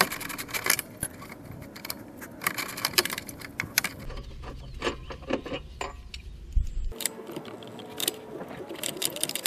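Metal hand tools clinking and clicking irregularly as a wrench and socket work a 19 mm bolt and nut on the suspension knuckle.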